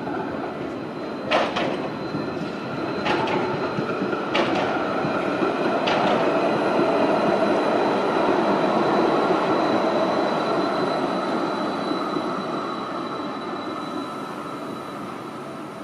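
Stadler Variotram low-floor tram passing on street track: its rolling noise on the rails builds as it approaches, peaks as it goes by, then fades as it moves away. Four sharp clacks come during the approach, in the first six seconds.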